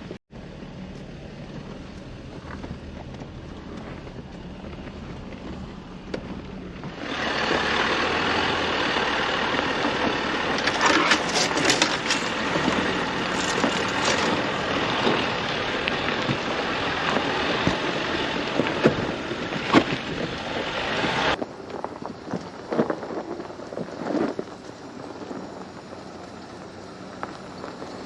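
A Jeep driving a rough dirt trail: a steady low engine hum, then a long loud stretch of rough noise with crunches and crackles from the tyres and wind, which cuts off suddenly about 21 seconds in. After that the engine goes on more quietly with a few knocks.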